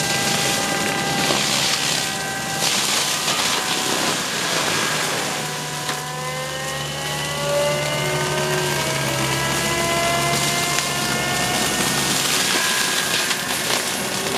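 Forestry mulcher running hard. Its engine note sags about four seconds in and then climbs steadily over the next several seconds, over a constant crackle of wood being ground up.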